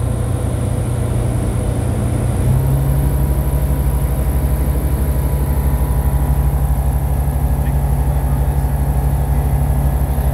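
Piston engine and propeller of a single-engine light aircraft running steadily, heard from inside the cockpit, a loud low drone. About two and a half seconds in, its pitch and level step up a little and then hold.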